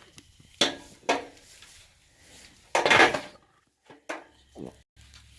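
A goat crunching on a piece of carrot: a few separate sharp crunches and knocks, the loudest about three seconds in.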